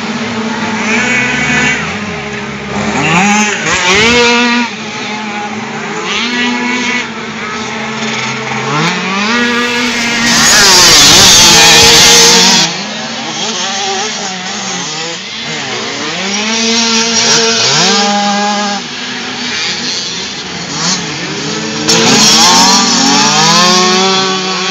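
Dirt bike engines revving up and down through the gears as bikes ride the track. About ten seconds in, one passes close and is loudest for about two seconds, and another passes close near the end.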